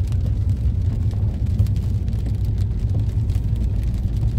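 Steady low rumble of a car's engine and tyres on a wet road, heard from inside the cabin, with rain hitting the car as faint scattered ticks.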